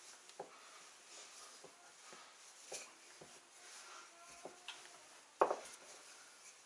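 Hands and a wooden rolling pin working noodle dough on a floured countertop: soft scattered knocks and rubbing, with one louder knock about five and a half seconds in.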